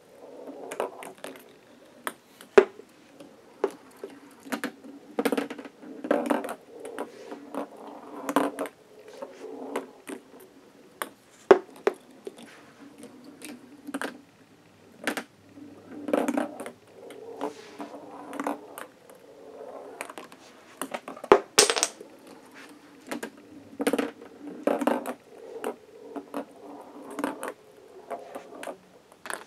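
Ping pong balls rolling along plastic Hot Wheels track and across a board, knocking into wooden blocks and K'Nex flip-flop arms that toggle with each ball: a hollow rolling rattle broken by many sharp clicks and taps, with one louder snap about two-thirds of the way through.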